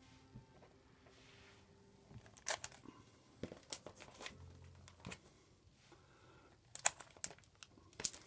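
Crinkling and rustling as paper or plastic is handled: a scatter of short, sharp crackles, the loudest near the end.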